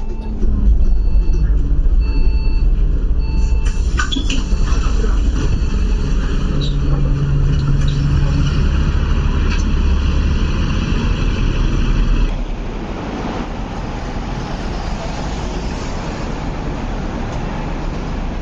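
City street traffic with a bus engine running close by, a low, steady rumble, and a run of short electronic beeps in the first few seconds. About twelve seconds in, the rumble drops to quieter, even road traffic.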